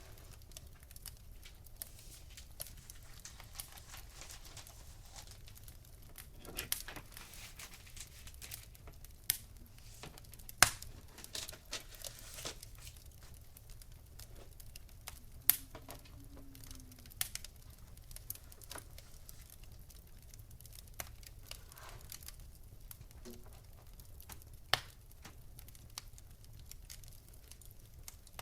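Wood fire crackling: scattered small snaps and pops over a low hiss, with a few sharp, louder pops about a third of the way in, about halfway and near the end.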